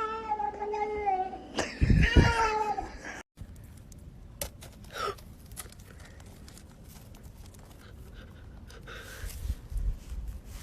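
A cat yowling: two drawn-out, wavering calls in the first three seconds, with a heavy thump during the second. After an abrupt cut, a quieter stretch follows, with light clicks and one short falling cat call about five seconds in.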